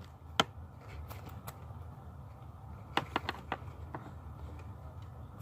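Faint handling noises: a few sharp clicks and taps, one near the start and a quick cluster of four about three seconds in, over a low steady background hum.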